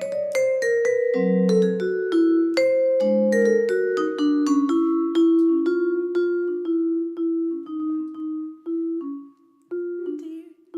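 Solo vibraphone playing a jazz line of struck notes that ring on. It starts busy, thins to slower, longer-held notes, pauses briefly just before the end, then picks up again.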